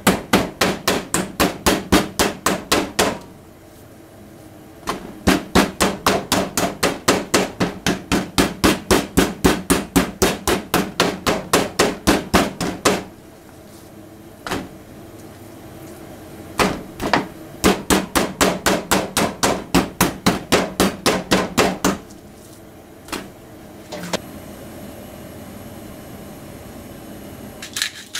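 Meat mallet pounding butterflied chicken breasts flat on a cutting board: quick, even runs of dull whacks, about four a second, broken by short pauses, with a few single knocks near the end.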